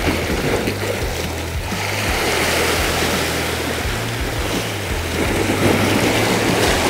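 Sea surf washing and breaking against a rocky shore, the rush swelling up twice, over background music with low bass notes.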